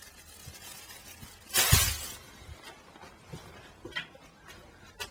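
A plastic motor-oil bottle being handled: one short crackling rattle about a second and a half in, then a few light clicks.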